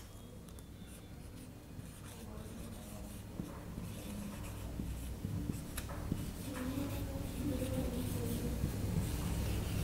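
Marker pen writing on a whiteboard: faint strokes with light squeaks, growing slightly louder toward the end.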